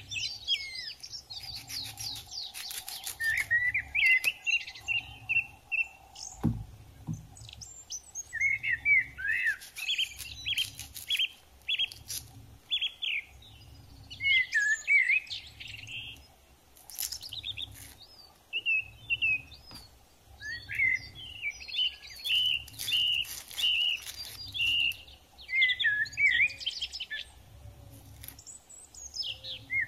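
Small birds chirping and twittering in rapid, overlapping bursts. Underneath is a faint low pulse about once a second, and there is a single low thud about six and a half seconds in.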